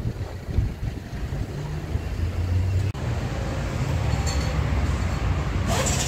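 Motor vehicle engine running, a steady low drone, with a brief drop about three seconds in.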